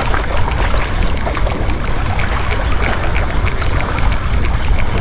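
Wind rumbling on the microphone over the wash of sea waves, steady throughout, with scattered small crackles.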